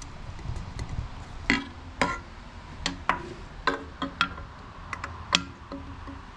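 A metal coolant pipe and its bracket clinking and tapping against the 2JZ engine block as it is offered up to the back of the water pump: about a dozen irregular sharp metallic clinks, each with a brief ring.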